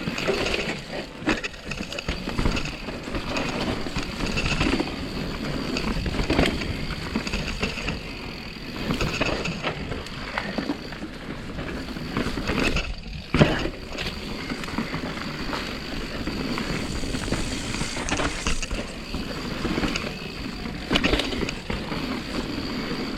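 Mountain bike riding down a dirt trail: knobby tyres rolling and crunching over dirt and roots, with rattles and knocks from the bike over bumps.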